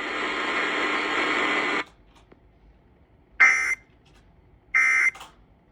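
Radio hiss that cuts off abruptly nearly two seconds in, then two short, shrill digital data bursts about a second and a half apart. These are the Emergency Alert System's SAME end-of-message (EOM) bursts that close the alert.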